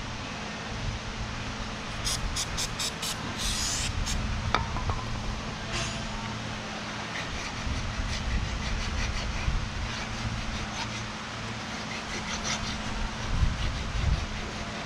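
Hand file scraping paint out of a steel pin hole in a front-end loader arm: a quick run of short strokes about two seconds in, a longer scrape near four seconds and fainter ones later, over a steady low hum.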